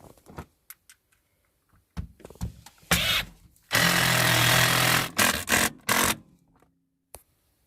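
A handheld power tool runs in one steady burst of about a second and a half, with knocks and clattering before and after it.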